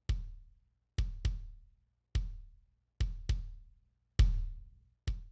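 A soloed kick drum track playing back: about eight kick hits, some single and some in quick pairs, each a sharp click with a low boom that dies away. The hit a little past four seconds in is the loudest.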